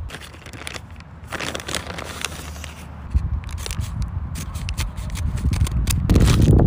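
A printed mailer package crinkling and being cut open with scissors: a run of crisp snips and crackles, with heavier handling noise near the end.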